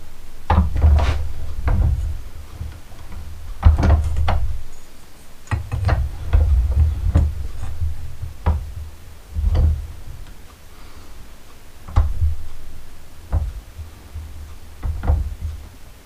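Copper pipe being handled and clamped in a steel bench vise: a dozen or so irregular metal knocks and clunks, each with a dull thump through the bench.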